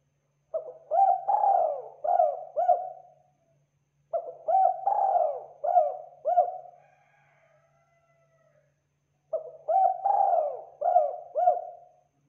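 Spotted dove (tekukur) cooing: three phrases of about five notes each, every phrase lasting about two and a half seconds, with pauses of one to three seconds between them.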